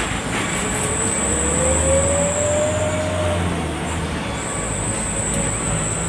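Cabin noise of a medium intercity bus driving slowly: a steady low engine hum, a whine that rises in pitch over the first three seconds, and a thin high whistle.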